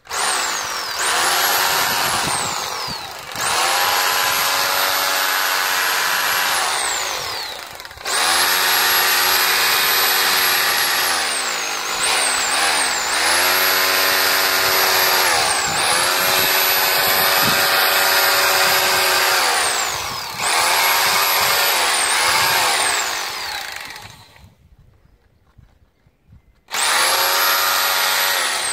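Makita HR2470T 780-watt SDS-plus rotary hammer drilling with an extra-long masonry bit into old render on a stone wall. It runs in bursts of a few seconds, the motor whining steadily and winding down with a falling pitch each time the trigger is released. There is a pause of about two seconds near the end before it starts again.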